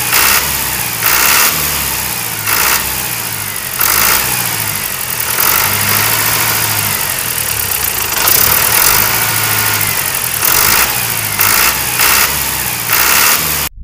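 Tractor engine running with uneven surges, like revving under load. It cuts off abruptly just before the end.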